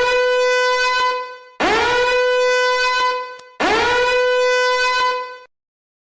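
A horn-like sound effect blown three times in a row, each blast scooping up in pitch and then held steady for about a second and a half.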